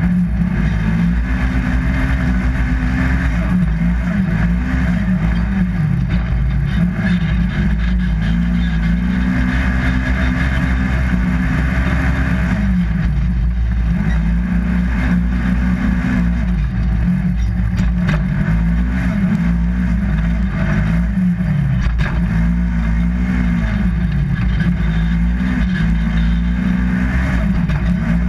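Polaris RZR XP 1000 side-by-side's parallel-twin engine, driven hard with its revs climbing and dropping off again every two to three seconds as the throttle is worked, over a steady low rumble.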